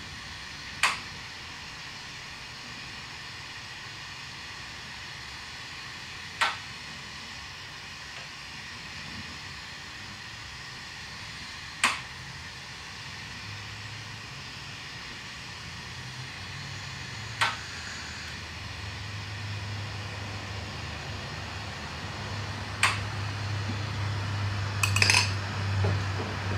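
Lampworking torch hissing steadily, with five sharp clicks about five and a half seconds apart as five 5 mm glass dots are set on the pendant. A low hum comes up in the second half, and near the end glass rods clink as one is taken from the rack.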